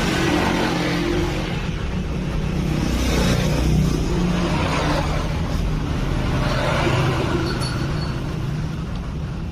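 Motor vehicle engine running, rising and falling in level a couple of times, as of vehicles revving or passing.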